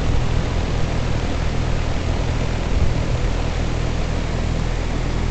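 Heil 3-ton heat pump outdoor unit running in heating mode: a steady low hum under an even rushing noise.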